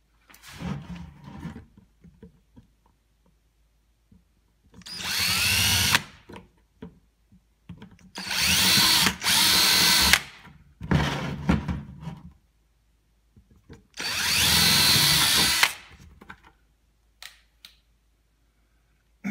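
Power drill running in four short bursts, its pitch rising as it spins up, boring holes through the rim of a plastic five-gallon bucket.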